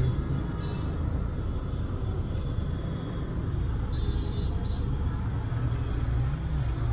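Steady low rumble of a motor vehicle moving through street traffic.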